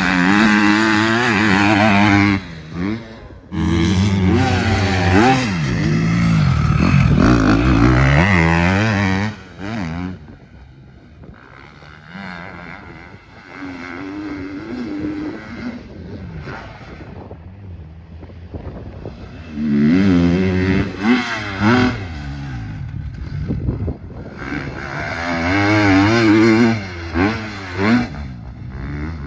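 Factory KTM 250 SX-F four-stroke single-cylinder motocross bike being ridden hard: the engine revs up and down in pitch through the gears with quick throttle chops. It is loud on the close passes, in the first ten seconds and again about twenty and twenty-six seconds in, and much fainter in between.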